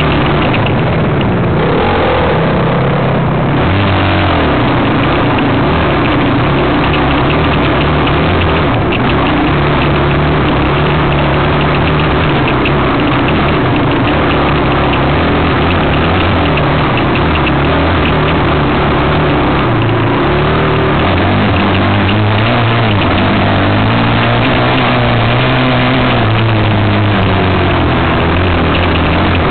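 Enduro dirt bike engine running under load on a rough trail, the revs rising and falling as the rider works the throttle, over a rough rattling and rushing noise.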